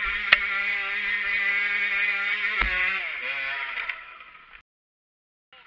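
Off-road motorcycle engine running hard on a steep climb, with a sharp click shortly after the start. A heavy thud comes a little after two and a half seconds as the bike goes over, then the engine note sinks and fades away into a second of silence.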